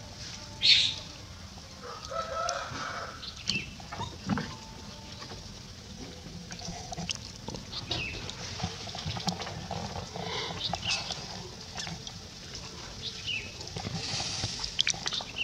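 Outdoor animal sounds: scattered short calls and chirps with small clicks, a loud sharp high-pitched call about a second in, and more high calls near the end.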